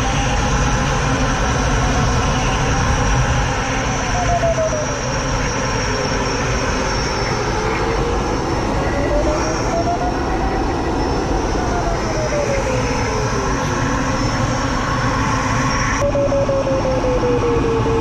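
Glider cockpit in flight: a steady rush of airflow noise, with the variometer's audio tone sliding slowly up and down in pitch as the glider meets lift and sink. Near the end the tone jumps to a new pitch.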